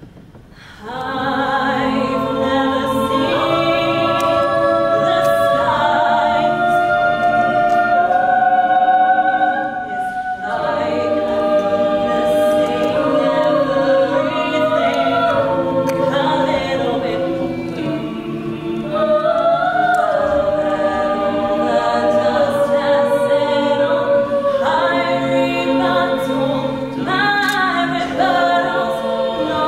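Mixed male and female a cappella group singing in close harmony, several voices holding chords that move together. The singing comes in about a second in after a short pause.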